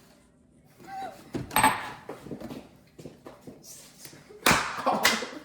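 Kitchen handling noises: rustling and light clatter, then two loud knocks a little over a second from the end, like a door or cupboard banging or something set down hard.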